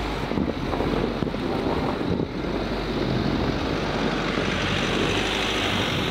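Rear-wheel-drive Mercedes Sprinter box van climbing a snow-covered hill: its diesel engine pulls steadily under load while its all-terrain tyres grip and churn through packed snow.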